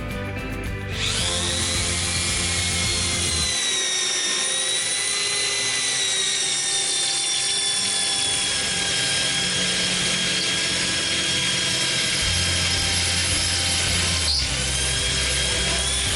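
Electric drill driving a cheap drill-bit sharpener attachment: the motor spins up with a rising whine about a second in, then runs at steady speed, with a brief dip in pitch near the end.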